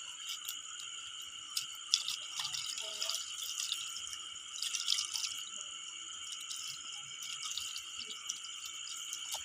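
Water poured from a plastic dipper splashes and drips onto raw fish flesh on a board, most busily about two and five seconds in. A steady high-pitched chorus of night insects trills behind it.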